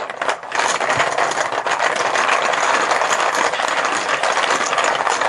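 Plastic chips being shaken and stirred in a bucket, a dense continuous clatter that stops suddenly at the end as one chip is drawn.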